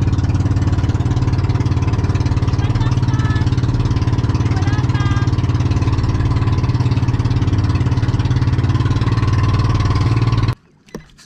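Outrigger bangka boat's engine running steadily under way, with a fast even firing rhythm, cutting off suddenly near the end.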